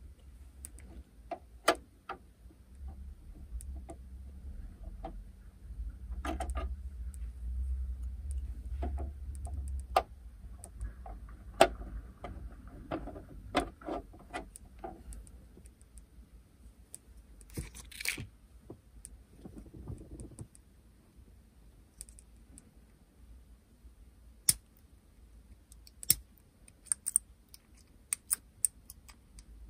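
Scattered sharp clicks and taps of modelling tools and small plastic model parts being handled, with a short rustle about eighteen seconds in.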